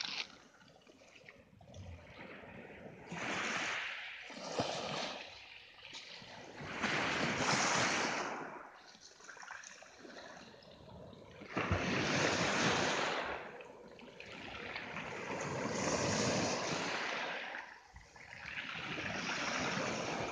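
Small sea waves breaking on a pebble beach and washing up over the shingle, the surf rising and falling every few seconds.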